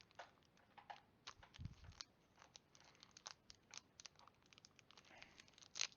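Faint handling noises: scattered small clicks and light rustles from trading card packs and cards being handled, with a soft low thump about a second and a half in.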